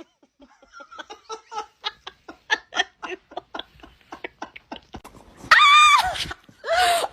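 Quiet, rhythmic laughter in short pulses, about four a second. About five seconds in come two loud, high-pitched cries.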